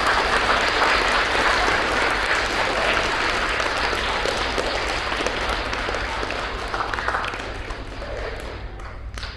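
Audience of schoolchildren applauding: a dense round of clapping, loudest at first and gradually dying away near the end.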